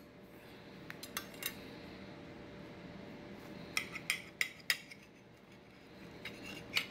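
Table knife clinking and scraping against a ceramic dinner plate while cutting into a breaded stuffed zucchini: a few light clicks about a second in, a cluster of sharper clinks around four seconds in, and more near the end.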